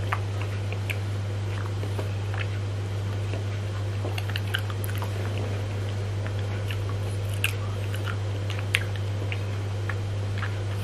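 Close mouth sounds of eating a soft ice cream bar: scattered wet smacks and clicks of biting and chewing, a couple of them sharper near the end. A steady low hum runs underneath.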